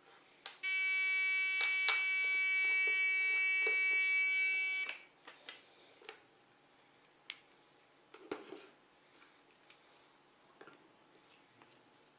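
Electronic buzzer of a homemade alarm sounding one steady, unbroken buzz for about four seconds, then cutting off. A few light clicks and taps follow.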